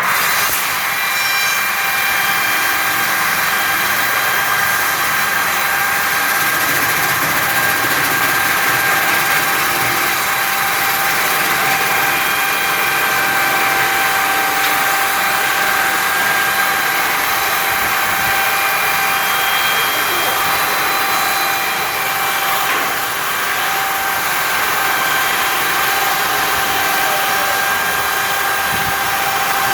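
Cant-making sawmill machine (brusoval) running, its saw blades and motor giving a loud, steady high-pitched whine over a dense mechanical noise, with a brief dip about three quarters of the way through.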